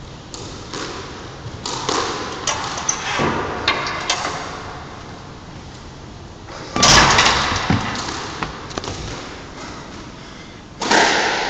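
Knocks and thumps echoing around a squash court, with one loud slam about seven seconds in that rings on for a second or so. Near the end comes the rubbing and knocking of the phone being picked up.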